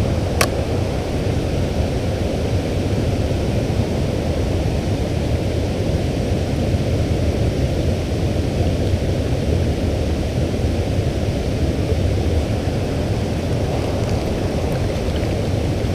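Steady low rushing of flowing creek water, with a single sharp click about half a second in.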